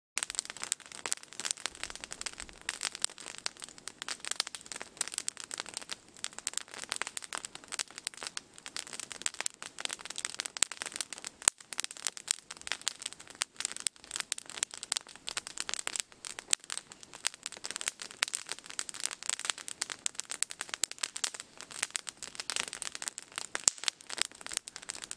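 Wood campfire crackling, with a steady stream of quick pops and snaps.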